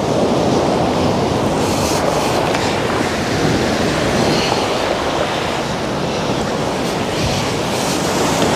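Steady rush of sea waves breaking against a seawall, mixed with wind on the microphone.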